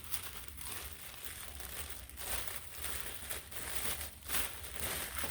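Packaging crinkling and rustling irregularly as it is handled and opened, over a low steady hum.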